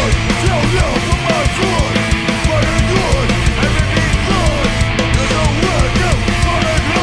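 Hardcore punk band playing live: distorted electric guitars and bass over fast, busy drumming, with no vocals.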